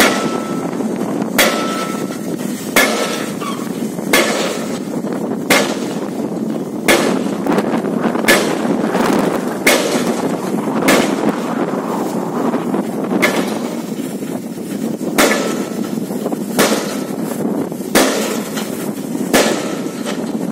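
Excavator-mounted pile hammer driving a steel sheet pile: sharp, ringing metal strikes at a steady pace of about one every second and a half, over the continuous running of the excavator's engine and hydraulics.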